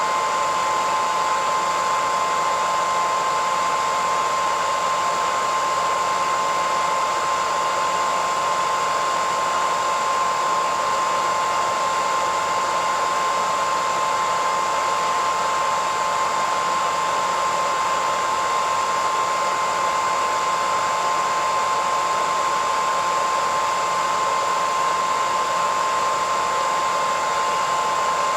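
Electric hairdryer running steadily, a constant rush of air with a high steady whine from its motor and fan.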